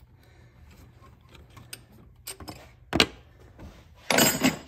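Metal hand tools being handled: light clicks, a sharp metallic knock about three seconds in, then a brief jangling clatter near the end.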